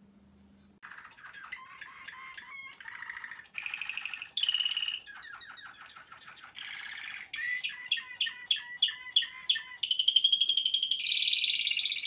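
Waterslager Malinois canary singing: a long song of changing phrases that starts about a second in. It has a stretch of sharp repeated notes about four a second, then a high trill near the end that cuts off abruptly.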